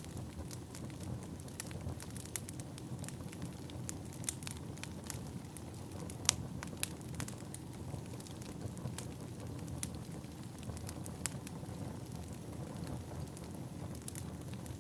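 Firewood burning: a steady low rush with frequent sharp crackles and pops, the loudest pop about six seconds in.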